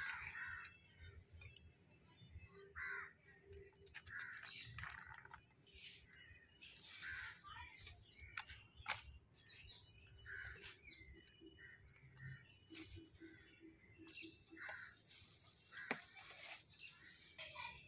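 Faint birds calling on and off in the background, with a few sharp taps.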